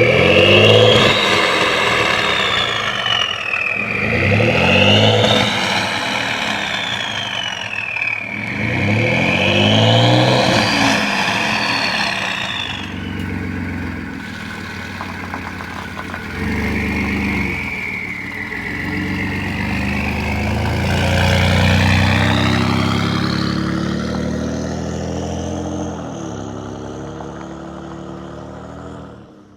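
Ford F-150's 3.5L EcoBoost twin-turbo V6 through an aftermarket catback exhaust, revved three times in quick succession and then running more steadily, with a loud high turbo whistle rising and falling with each rev. The whistle climbs again near the end before the sound cuts off suddenly.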